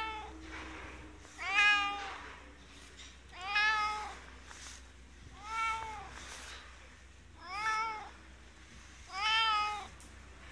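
Domestic cat meowing repeatedly while being petted: five drawn-out meows about two seconds apart, each rising then falling in pitch.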